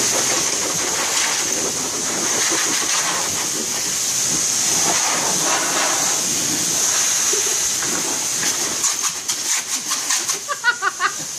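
Handheld hair blow dryer running with a steady, high airy hiss. From about eight seconds in, the hiss turns uneven and wavers in loudness.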